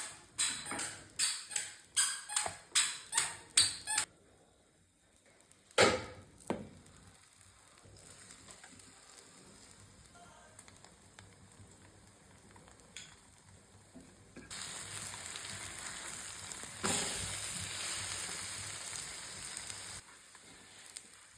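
A run of quick, even tapping strokes, about three or four a second, then a single knock. Then a bread omelette frying in a pan, a faint sizzle that turns louder about two-thirds of the way in.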